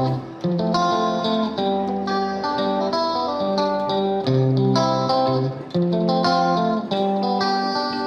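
Background music led by a plucked guitar, notes changing about every half second.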